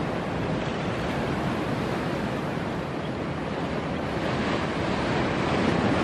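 Steady rushing noise with no distinct events, growing a little louder near the end.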